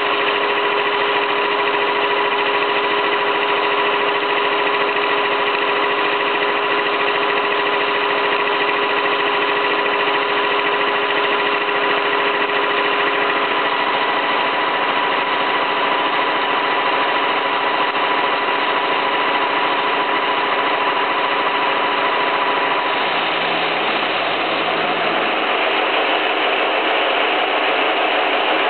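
Stanko 6T12 vertical milling machine running and cutting a pocket in a steel block with an end mill. The loud, steady cutting noise is mixed with the machine's whine tones, which fade away partway through.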